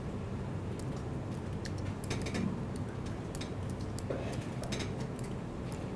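Typing on a laptop keyboard: irregular, scattered key clicks over a steady low hum.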